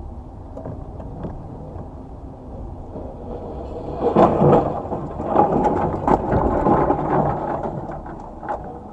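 A car cabin heard through a dashcam: steady road and engine rumble on a wet road. From about four seconds in, a louder run of knocks and rattles comes in.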